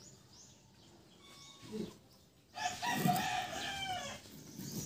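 A rooster crowing once, about two and a half seconds in, for about a second and a half, its pitch dropping at the end.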